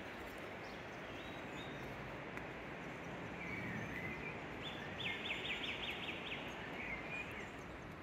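Steady rush of a shallow river flowing over stones. A small bird calls several times in the middle, including a quick run of about eight high notes.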